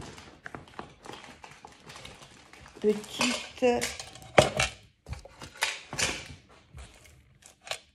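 Small hard objects clicking and clattering against each other and the table as they are handled, in irregular knocks, a few of them sharper and louder.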